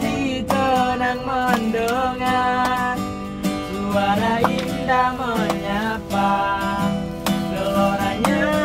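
A man singing live to a strummed acoustic guitar in a steady rhythm, the voice gliding up and down between phrases.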